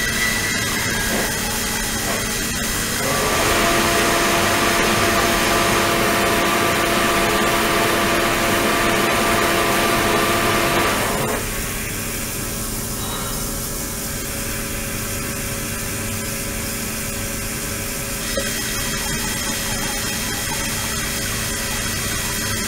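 Flowing-water ultrasonic cleaning rig: water running into a tank under a steady machine whine made of several held tones. The sound gets louder with a new set of tones about three seconds in, drops back about eleven seconds in, and shifts again near the end.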